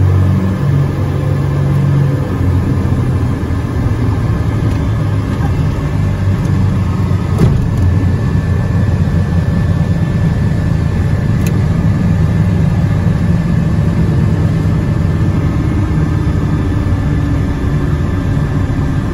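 Light aircraft engines running steadily, heard from inside the cockpit: a loud low drone with a steady high whine alongside it.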